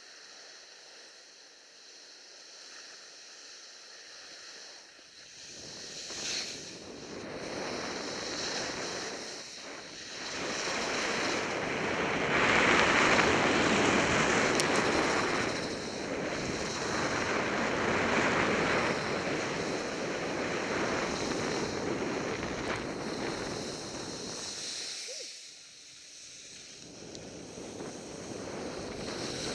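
Wind rushing over an action camera's microphone as it moves down a ski slope. It starts faint, builds to its loudest about halfway through, drops briefly near the end and then picks up again.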